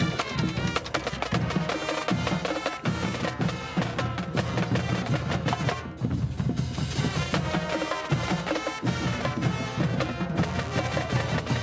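High school marching band playing a fast stands tune: a drumline of snare drums, tenor drums and bass drums beats out rapid strokes while trumpets and other brass play over them.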